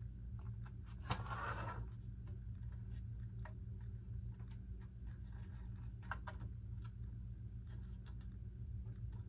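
Faint handling sounds of small model crossing-signal parts being fitted to a model crossing gate: a sharp click about a second in followed by a short scrape, then scattered light clicks over a steady low hum.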